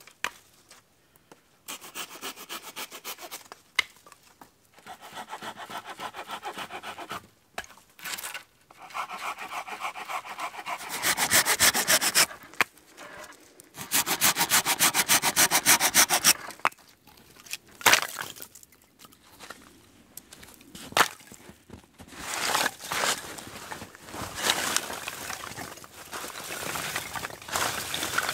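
Hand saw cutting through branches for firewood in several bursts of quick back-and-forth strokes, followed by sharp knocks of wood and rustling as the cut sticks are handled.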